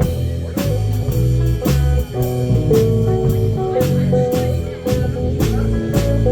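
Blues band playing an instrumental stretch between verses: a bass line, drum kit keeping a steady beat, and guitar.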